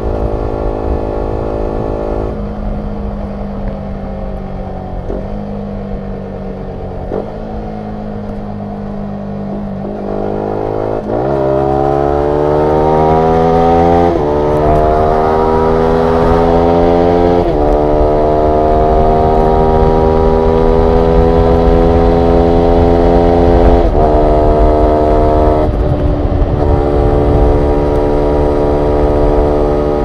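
Yamaha YZF-R125's single-cylinder 125 cc four-stroke engine through a full Akrapovic exhaust system, heard onboard while riding. The engine runs at a steady part-throttle note at first. About a third of the way in it gets louder and pulls, its pitch climbing through a couple of breaks. It then holds a higher steady note and steps down in pitch twice near the end.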